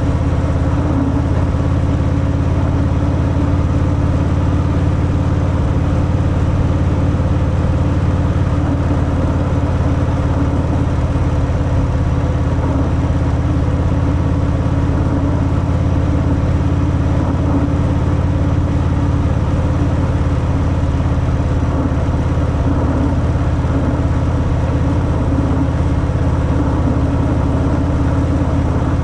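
Harley-Davidson Fat Boy's air-cooled V-twin running through its stock exhaust, held at an even engine speed with no revving or gear changes.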